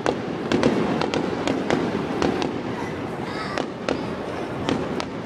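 Aerial firework shells bursting during a finale barrage: about a dozen sharp bangs in quick, uneven succession, with a short lull near the middle, over a steady background hiss.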